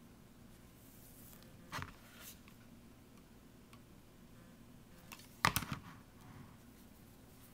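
Light clicks and taps of hands working with a hot glue gun and fabric trim. About two-thirds of the way in comes a louder, short clatter as the plastic glue gun is set down on the cutting mat.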